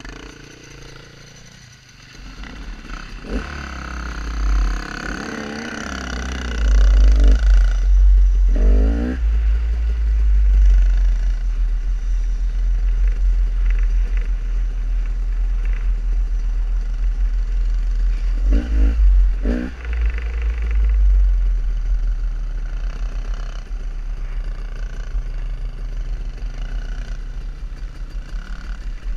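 Dirt bike engine running and revving up and down while riding, with heavy wind buffeting on a helmet-mounted microphone. It is quieter for the first two seconds, then the engine picks up, with revving sweeps around seven to nine seconds in and again near twenty seconds.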